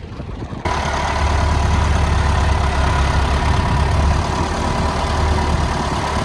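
Tractor engine running steadily close by: a deep rumble with a steady whine above it. It comes in suddenly louder about half a second in.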